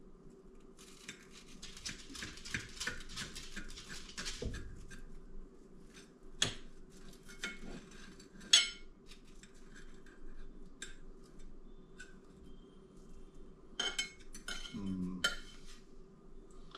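Knife cutting through a toasted sandwich on a plate: a few seconds of quick rasping strokes through the crisp bread, then scattered clinks of knife and plate, one much sharper than the rest.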